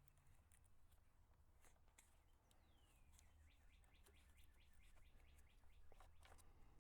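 Near silence with faint bird song in the background: one falling call, then a rapid trill of repeated notes, over a low hum and a few faint clicks.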